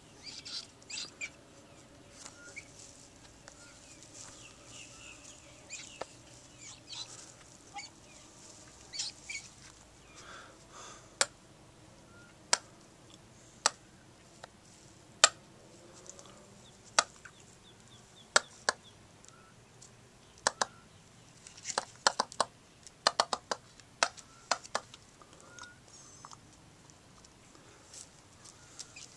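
Soft calls from a peahen and her peachick, with a scattering of sharp clicks that come thick and fast in a quick cluster about three quarters of the way through.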